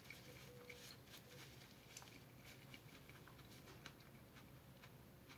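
Near silence with faint, scattered small clicks and rustles: a person eating and handling food and its wrapping.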